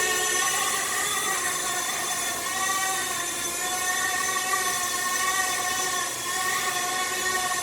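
Small electric RC ERA C189 model helicopter running, a steady motor-and-rotor whine whose pitch wavers slightly.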